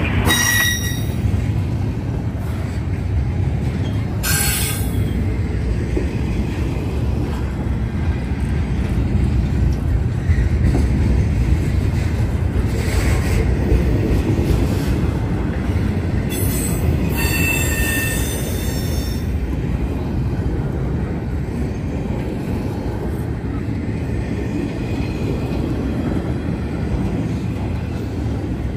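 Intermodal freight train cars rolling past with a steady low rumble. Short high-pitched wheel squeals come just after the start and about four seconds in, and a longer one comes around seventeen to nineteen seconds in.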